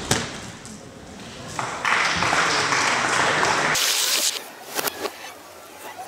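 A thud at the start as a gymnast lands on the mat after a German wheel vault. It is followed by about two seconds of loud crowd noise from the hall, then a few sharp knocks near the end.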